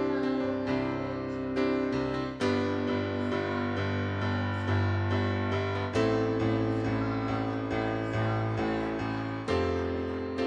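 Keyboard playing slow, sustained chords, the chord changing every three to four seconds.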